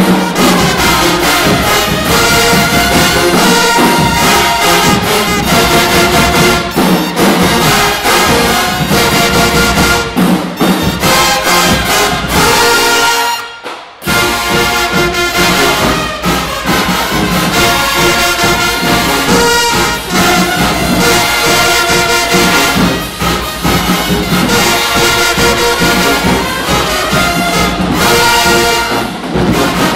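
Marching band playing loudly: massed brass (trumpets, trombones and sousaphones) over drums. The band cuts off briefly about halfway through, then comes back in.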